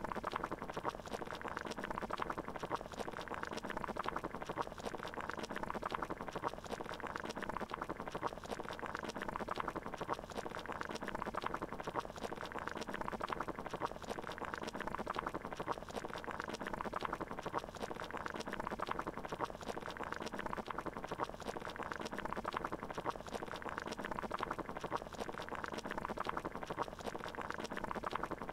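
Water boiling in a pot: a steady bubbling with fine popping that does not change.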